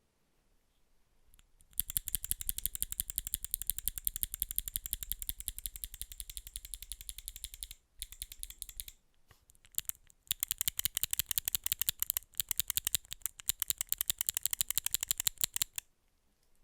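Fast typing on a custom 60% mechanical keyboard with lubed C³ Equalz Dragon Fruit linear switches, a brass plate and PBT cherry-profile keycaps: rapid keystrokes in long runs, starting about two seconds in, with a brief break around the middle and stopping near the end.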